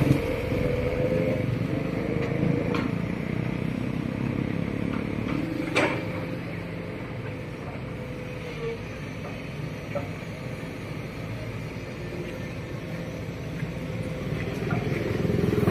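Diesel engine of a Sumitomo hydraulic excavator running steadily while it digs and loads soil into a dump truck, with a held hum and a few sharp knocks, the loudest about six seconds in. A passing motorcycle adds to the engine noise at the very start.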